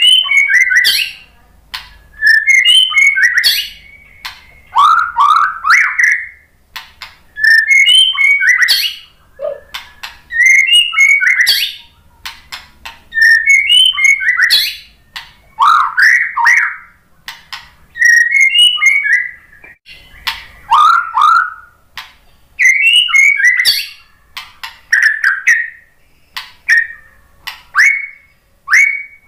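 White-rumped shama (murai batu) singing loud phrases of rich whistles and fast sweeping notes, a burst every two seconds or so with short pauses between. Near the end the phrases shorten into a quick run of repeated down-slurred notes.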